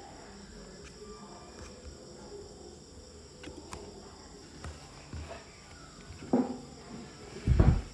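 Steady high-pitched insect chirring in the background, with a few faint clicks and two short low-pitched sounds near the end, the second the loudest.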